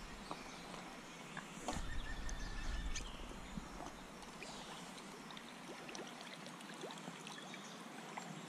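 Faint riverside ambience: a soft steady hiss with scattered light ticks, and a brief low rumble about two seconds in.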